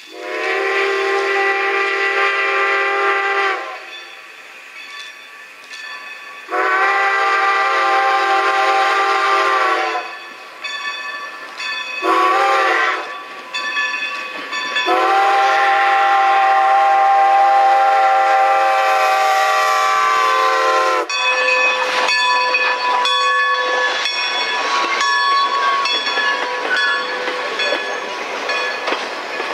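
Strasburg Rail Road No. 90, a 2-10-0 steam locomotive, blows its steam whistle in the grade-crossing pattern: long, long, short, long, each blast sliding slightly in pitch as it starts and stops. After the last blast the locomotive and its wooden coaches roll past close by, wheels clicking over the rail joints.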